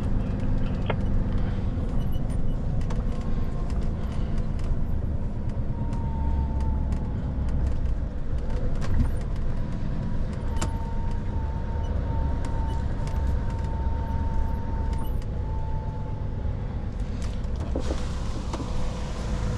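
Scania truck's diesel engine running steadily at low speed under a heavy grain load, heard inside the cab as a constant low rumble. A faint thin whine sounds for several seconds midway, with a few light clicks.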